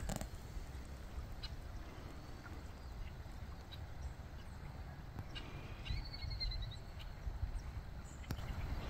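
Quiet outdoor ambience with a steady low rumble. About six seconds in, a small bird gives a quick run of high chirps.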